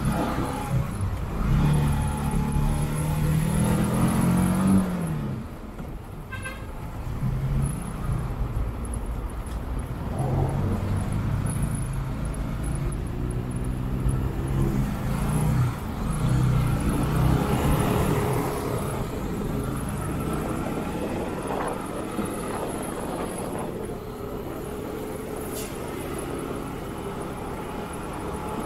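Motorcycle engine running on the road. Its pitch climbs as it accelerates and drops at gear changes several times, over steady road and wind noise.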